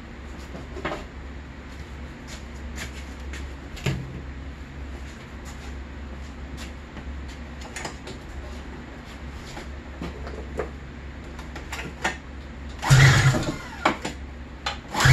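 Two hard pulls on the recoil starter of a 1995 Arctic Cat ZR 700 two-stroke twin, about 13 and 15 seconds in, turning the engine over without it catching. Before the pulls there is only a steady low hum with a few light clicks.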